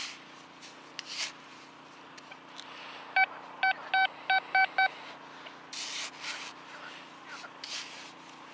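Quest Q20 metal detector giving a quick run of six short beeps at one pitch as its coil passes back over a target. Around the beeps come short scrapes of sand being dug by hand.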